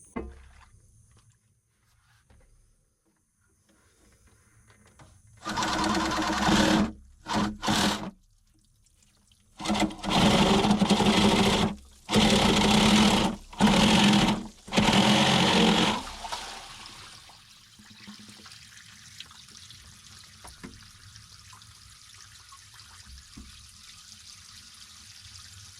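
Artesian well water forced through a garden hose, sputtering and gushing out in several loud surges, then settling into a steady, fainter running flow.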